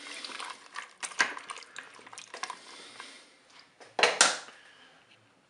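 Wooden spoon stirring pasta, chopped tomatoes and water in a multicooker's metal bowl: scraping and sloshing with small knocks against the bowl, then a single louder knock about four seconds in.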